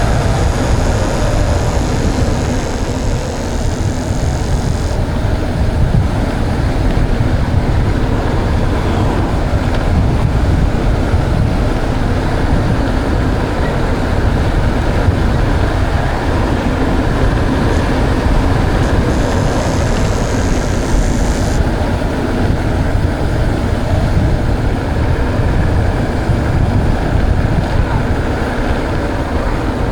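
Steady, loud wind rumble buffeting the microphone of a moving mountain bike, with tyre noise from the trail and a higher hiss twice.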